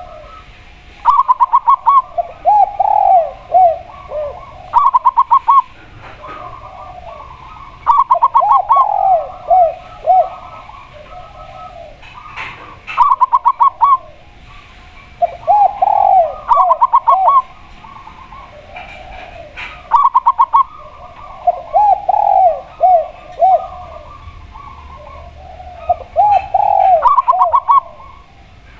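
Spotted dove and zebra dove cooing in turn, in repeated phrases: a quick run of short, higher notes followed by lower rolling coos, recurring every few seconds.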